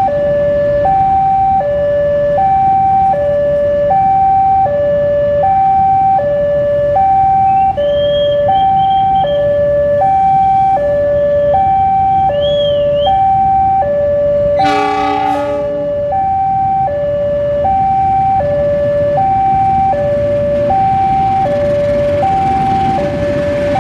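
Railway level-crossing warning alarm sounding a steady two-tone electronic ding-dong, high and low notes alternating about every three-quarters of a second, over a low rumble. About 15 seconds in, a short horn blast of about a second, from the diesel locomotive crossing.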